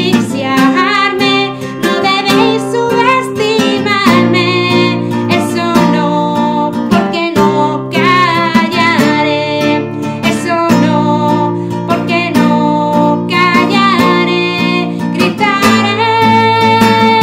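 A woman singing in Spanish while strumming a classical guitar with a capo, and a long note held near the end.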